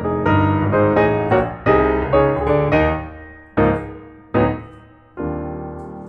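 Background piano music: a melody of single struck notes, quick at first, then slower, with the last note held and fading.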